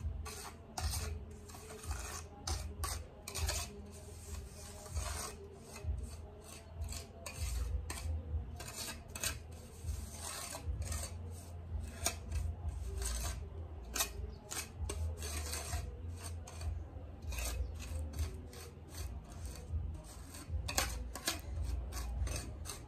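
Metal spoon scraping and stirring a gritty sugar-and-Vaseline lip scrub on a steel plate, in many short, irregular rasping strokes.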